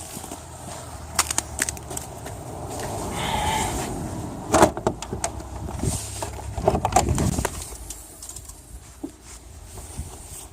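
Clicks and knocks of hands working on a car's hood, opening it to get at the engine, with the loudest knock about four and a half seconds in and a brief squeak a little before it.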